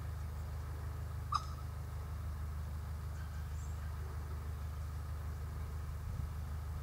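Steady low hum of an engine running, with one short sharp chirp about a second and a half in.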